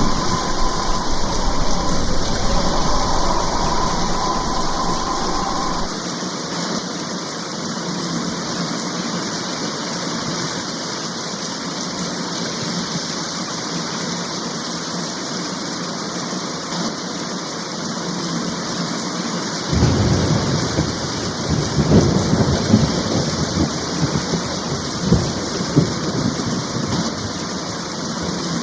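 Heavy rain falling in a steady hiss, with thunder rumbling low in the first several seconds, dropping away suddenly, then rolling back in about two-thirds of the way through in uneven swells.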